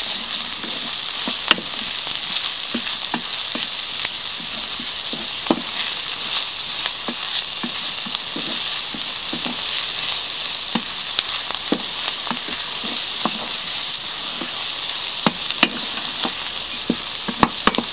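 Diced onions with paprika and turmeric sizzling steadily in hot oil in a stainless steel frying pan, the oil just topped up to bloom the spices. A wooden spoon stirring them scrapes and taps the pan at irregular moments.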